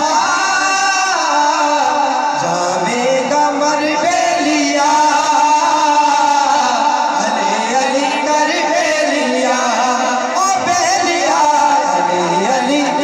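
Male voice singing a devotional song in praise of Ali, with long held, wavering notes.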